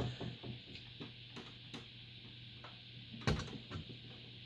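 Faint clicks and scrapes of a flathead screwdriver working the metal spring clip of a CPU heatsink onto the processor socket's lugs, with one sharper click about three seconds in.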